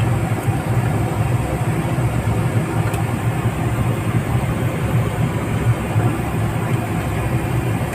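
Steady low engine and road rumble of a car driving slowly, heard from inside the cabin.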